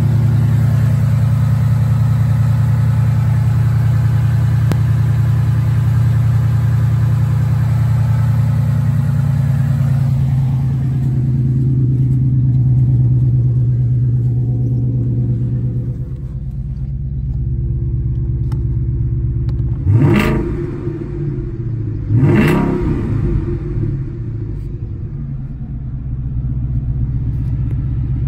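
Ford Mustang GT's 5.0 Coyote V8 running steadily, its idle dropping lower about sixteen seconds in. Near the end it is revved twice, briefly, about two and a half seconds apart, then settles back to idle.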